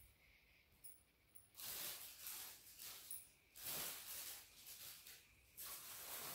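Plastic clothing bags crinkling and rustling in several bouts, starting about a second and a half in, as a plastic-wrapped garment is pulled from a pile.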